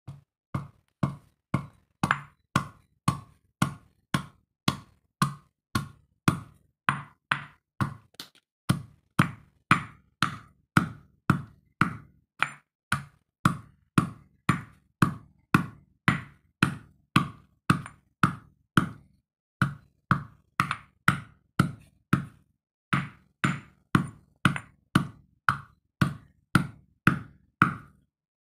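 Heavy stone pestle pounding whole green fruit in a granite stone mortar, a dull knock about twice a second as the fruit is crushed to pulp, with a couple of short pauses.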